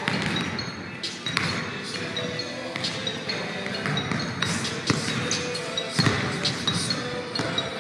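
Basketballs bouncing on a hardwood gym floor, with irregular knocks every second or so that echo around the large hall.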